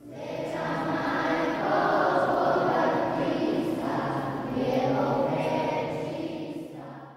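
A choir singing, echoing through the church's large vaulted crypt, rising and falling in two swells.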